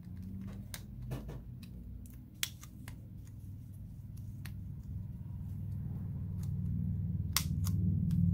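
Scattered small clicks and taps of plastic phone parts being pressed into place by hand as the bottom loudspeaker cover is fitted into a phone's frame, over a steady low hum that grows louder toward the end.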